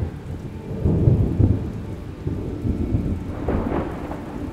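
Thunder rumbling in a rainstorm, swelling loudest about a second in, over the hiss of steady rain.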